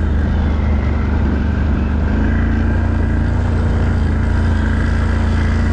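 ATV engine running steadily under throttle, its pitch edging up slightly about two seconds in.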